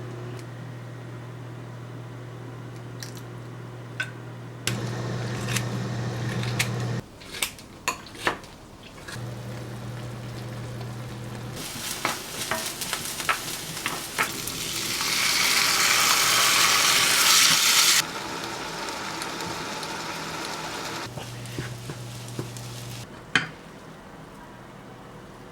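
Home kitchen cooking sounds: food sizzling in a pan, loudest for a few seconds just past the middle, with utensils clicking and knocking against cookware over a low steady hum that starts and stops abruptly as the shots change.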